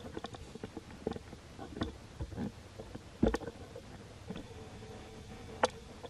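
Irregular knocks, clicks and scuffs of a handheld camera being handled as the person filming moves about, the loudest knock about three seconds in and a sharp click near the end, over a faint steady hum.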